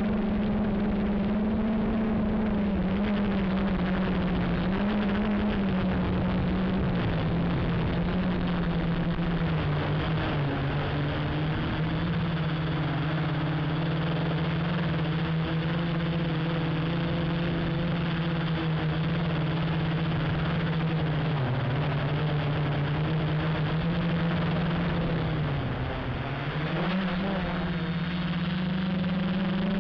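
Quadcopter's electric motors and propellers buzzing in flight, heard from a camera on the frame, with a steady hum and rushing air. The pitch sags now and then as the throttle eases, most deeply about 26 seconds in, then climbs back.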